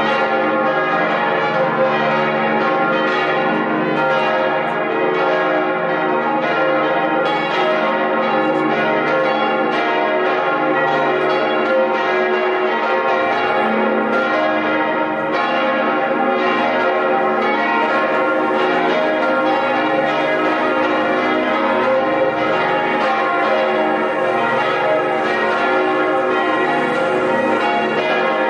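Church bells ringing together in a continuous peal, many overlapping strikes with no pause.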